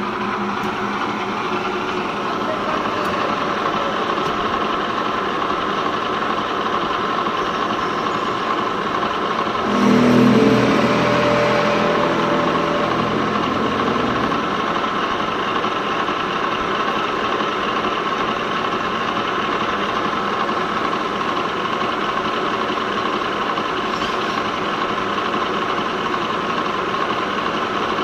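Spline rolling machine running: a steady machine hum with a level mid-pitched whine, rising to a louder, lower drone for about four seconds near the middle.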